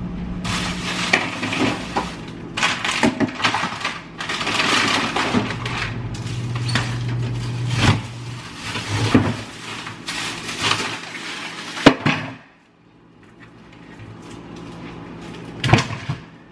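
Frozen meat being taken out of a freezer: plastic packaging rustling and crackling with hard knocks of frozen packages, ending in a sharp knock about twelve seconds in, after which it goes much quieter.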